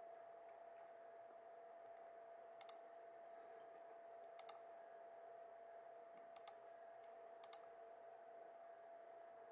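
Computer mouse button clicked four times, each click a quick pair of ticks, over a faint steady hum.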